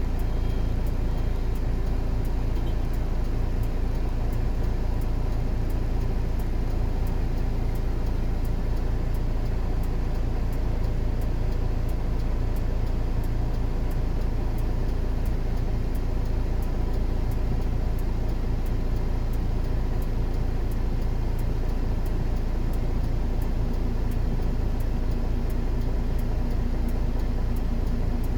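An engine running steadily at an even level, with a deep low hum and several steady tones above it.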